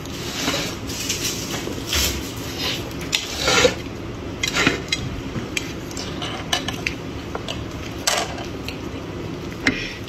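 A plastic cake knife cutting into a glazed mousse cake, with irregular clicks and scrapes as it knocks and drags against the cake's plastic tray.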